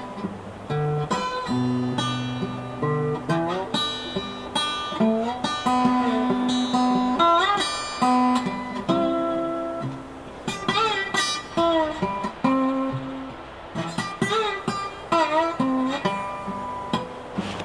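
Background music: acoustic guitar playing a melody of separate picked notes, with a few notes that bend in pitch.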